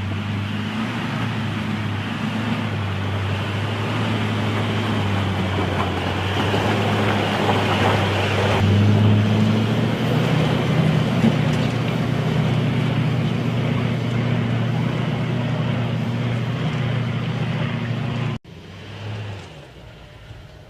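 A motor vehicle's engine running with a steady low drone, swelling slightly midway. It cuts off abruptly near the end, leaving a quieter sound.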